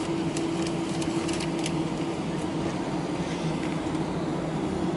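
Cabin noise of an Airbus A319-111 taxiing after landing: its CFM56-5B engines at idle and the cabin air system give a steady hum with one steady low tone, and a few faint ticks.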